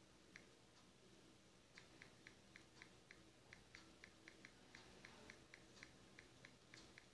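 Faint, quick clicks of typing a text message on a smartphone, about four a second after a short pause near the start.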